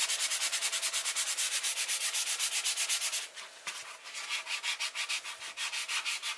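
Foam-backed fine-grit sanding pad rubbed quickly back and forth over a leather steering wheel rim, a fast even scratching at about eight strokes a second, lightly scuffing the surface before dyeing. The strokes pause briefly a little past halfway, then carry on a little softer.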